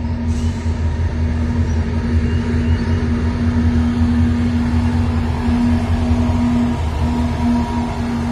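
Diesel-electric freight locomotives running as they approach and roll onto a bridge: a loud, steady low rumble with a strong droning hum on top, the hum turning uneven near the end as the locomotives come into view.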